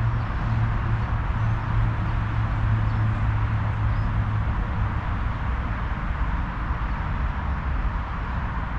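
Steady outdoor background noise with a constant low rumble, like wind or distant traffic, and no distinct events.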